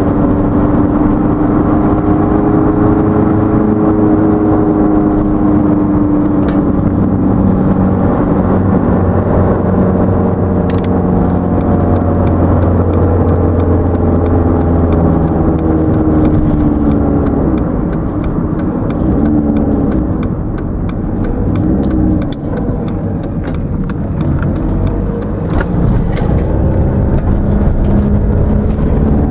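A car's engine running and tyre-on-road noise, heard from inside the cabin while driving, the engine note falling and rising again as the speed changes. Scattered light ticks sound through the second half.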